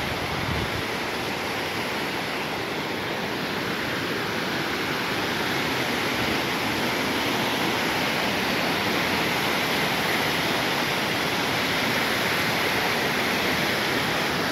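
Large waterfall's rushing whitewater: a loud, steady roar of falling and churning water.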